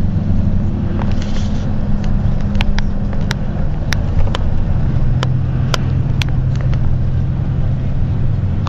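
A steady low engine hum that drops in pitch about halfway through, with scattered sharp clicks.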